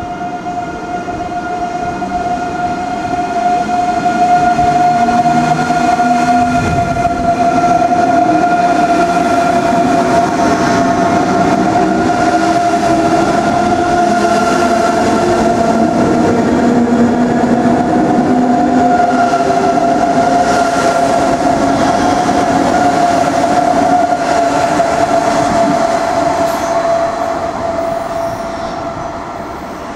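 A train moving through the station: a dense rumble under a steady, high-pitched tone. It grows louder over the first few seconds and eases off near the end.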